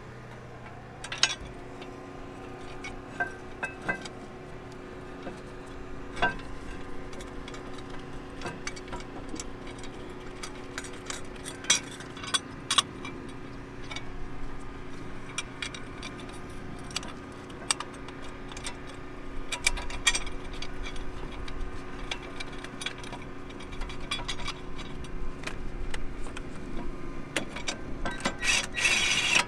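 Scattered metal clinks and taps of hand tools and bolts as a front brake caliper bracket is fitted back onto the hub over the rotor, with a steady low hum underneath. Near the end the clicks come thick and fast, like a ratchet wrench turning a bracket bolt.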